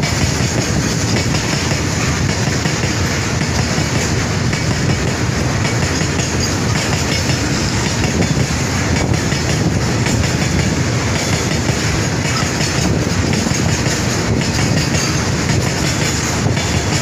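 A long rake of BTPN bogie tank wagons of a goods train rolling past at speed, a steady rumble of steel wheels on the rails.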